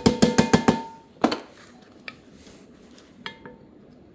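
A soft-faced mallet tapping quickly on a metal fitting, about eight strikes in the first second, each leaving a short ringing tone. One more strike comes a little after a second in, followed by a few faint clicks.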